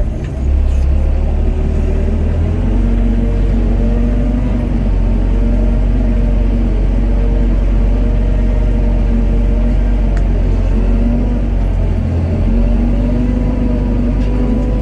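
Doosan DX55 mini excavator's diesel engine running steadily with a deep rumble, a pitched hum over it wavering slightly up and down.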